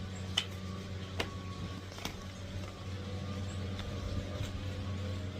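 A steady low mechanical hum with a few faint clicks in the first two seconds.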